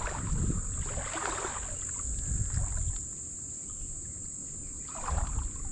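Legs wading through shallow tidal water, sloshing with each slow stride. A steady high-pitched insect drone runs underneath.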